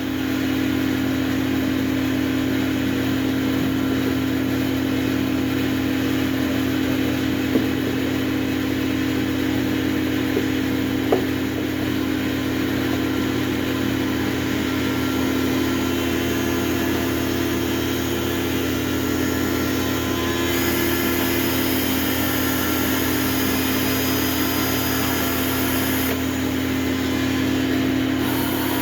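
A machine motor running steadily with an even hum, with a couple of light clicks in the first half.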